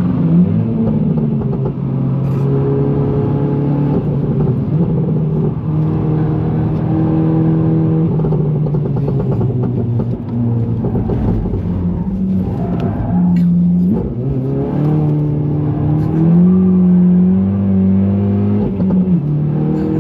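GTI hatchback's engine pulling hard on a track lap. Its pitch holds fairly steady for a while, then dips and climbs again several times in the second half as the revs change.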